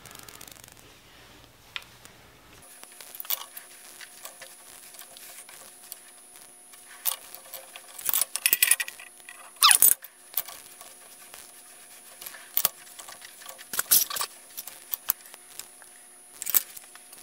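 Irregular metal clinks and knocks as a steel chuck key works the jaws of an 18-inch four-jaw chuck on a large lathe, with a few louder clanks about halfway through and again later.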